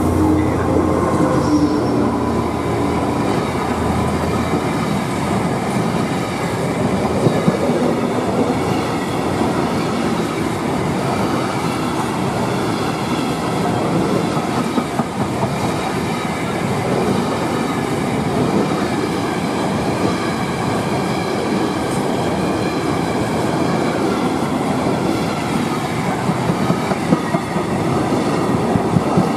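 A freight train of empty intermodal container flat wagons rolling past, hauled by a Hupac D100 diesel locomotive whose engine hum is heard for the first few seconds. The wagons then run by in a steady rumble, with wheels clacking over rail joints about seven seconds in and again near the end.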